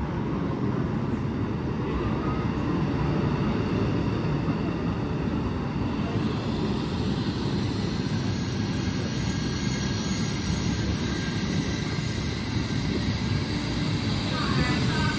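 Whoosh high-speed electric train, a KCIC400AF trainset, pulling in alongside the platform with a steady low rumble of wheels and rushing air. A thin high whine sets in about halfway through.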